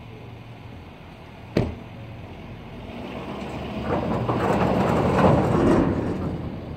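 A pickup truck door shuts with a single knock about a second and a half in. Then a rising grinding scrape builds as the truck backs the tilt-deck trailer under the 20-foot steel shipping container, loudest a little past the middle and easing off near the end.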